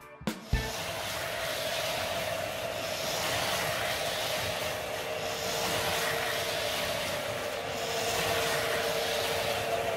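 Lionel O-scale model train and Carrera Go 1:43 slot cars running together on the layout: a steady whirring rumble with a constant motor whine. A snatch of guitar music cuts off about half a second in.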